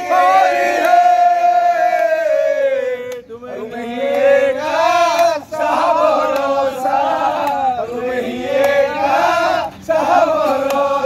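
A group of men shouting and laughing together in long, drawn-out cries, their voices held and bending in pitch, with brief breaks about three, five and a half, and ten seconds in.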